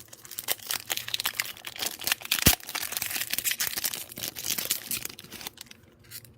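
Donruss Optic trading card pack wrapper being torn open and crinkled in the hands: a dense crackle lasting about five seconds, with one sharp, loudest rip about two and a half seconds in.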